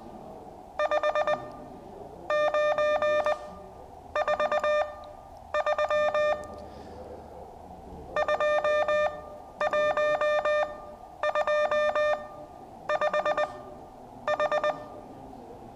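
Morse code (CW) sent as a single-pitched beep tone, keyed in groups of rapid short dits about nine times, with pauses between the groups. It is a run of 5s (five dits) with an H (four dits) slipped in among them as a listening test.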